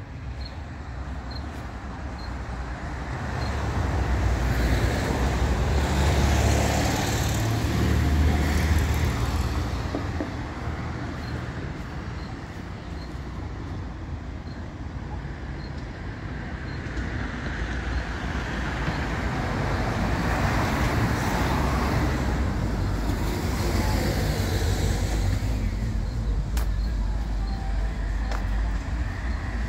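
Road traffic on a town street: cars passing, with two louder passes that swell and fade, about five seconds in and again about twenty seconds in, over a steady low rumble. Faint high ticks repeat a little under twice a second through the first half.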